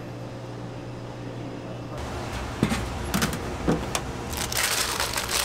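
A steady low hum, then a few short knocks and the crinkling rustle of parchment paper being handled over a steel pan, the crinkling growing denser near the end.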